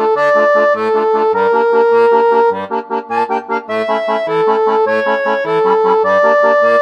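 Background music: a melody in held notes over an accompaniment that alternates a bass note with a chord, a few beats a second.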